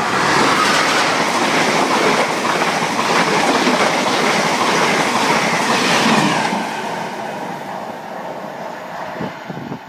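Class 90 electric locomotive and its train of Mark 3 coaches passing at speed: a loud rush of wheel-on-rail noise with a light clatter over the rail joints. It falls away after about six and a half seconds as the rear of the train goes by.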